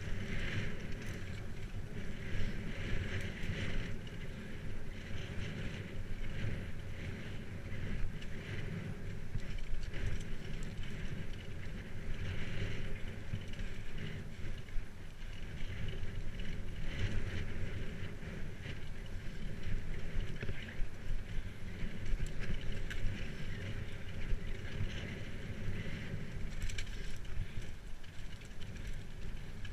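Bicycle riding over a muddy dirt path: a steady low rumble of tyres on the ground, with wind buffeting the microphone.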